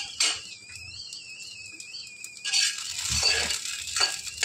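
Green chillies frying in hot oil in a black kadai, with a steel spatula knocking and scraping against the pan; the sizzle comes up strongly about halfway through.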